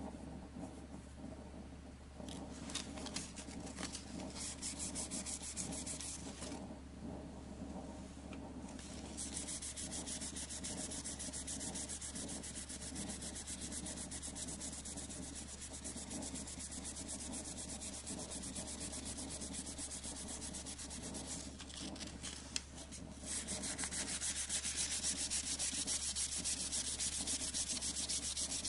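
Sandpaper rubbing quickly back and forth by hand over a carved Japanese red oak (akagashi) shift knob. The strokes begin about two seconds in, stop briefly about seven seconds in, then run on steadily and get louder near the end.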